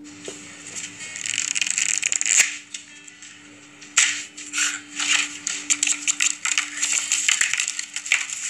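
A deck of playing cards being shuffled and riffled: bursts of rattling card flutter with quick clicks, about a second in and again from about four seconds on, over a faint steady tone.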